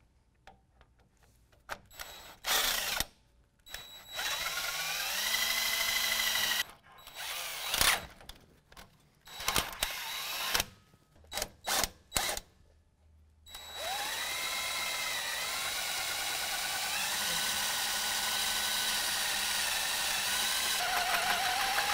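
Cordless DeWalt drill boring out a pilot hole to 1/2 inch through a steel bumper bracket and the truck's frame horn. It comes in short trigger pulls, each motor whine rising as it spins up, with a longer run about four seconds in, then steady drilling from about fourteen seconds in.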